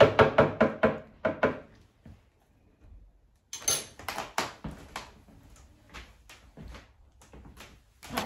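Kitchen handling knocks and thuds: a quick run of them in the first second and a half as avocado goes into a blender jar, then after a lull another run of clicks and thumps.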